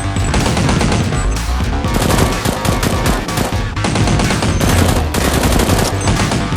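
Rapid bursts of automatic gunfire over background music.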